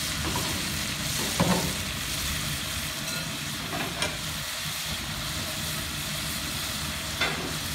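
Chunks of raw chicken sizzling in hot fat in a large black cast-iron pot, a steady frying hiss. A few brief knocks come through, about a second and a half in, around four seconds in and near the end.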